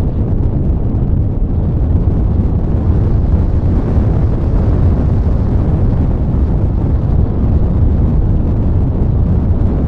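Airstream rushing over the microphone of a small camera mounted in the open cockpit of an RC sailplane in flight: a steady, low, buffeting wind noise.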